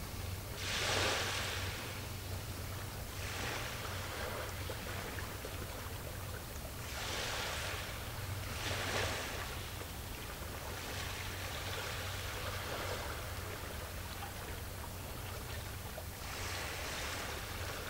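Small waves washing in every few seconds, each a short rush of hiss, over a steady low hum.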